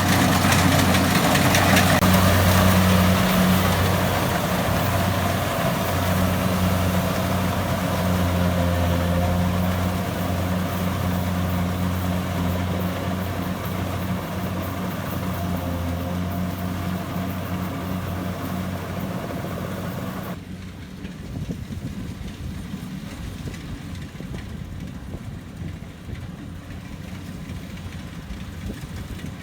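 Heavy engine running steadily with a deep, even hum. About two-thirds of the way through the sound changes abruptly to a quieter, duller engine noise.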